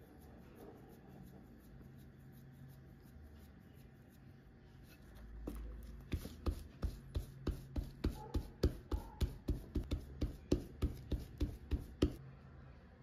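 Hands working a ball of corn masa: quiet rubbing as it is rolled between the palms, then a run of sharp pats, about three a second, as it is slapped flat into a disc, stopping shortly before the end.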